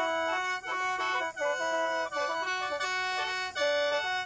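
Lao khaen, a bamboo free-reed mouth organ, played with several pipes sounding together. The notes shift quickly in a running melody, broken by short dips between phrases.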